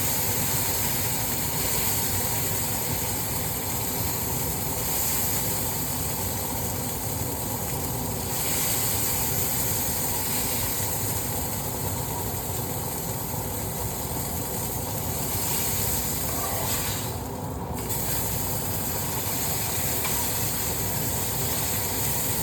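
Burger patties sizzling in a hot, greasy frying pan: a steady hiss, with a faint low hum underneath.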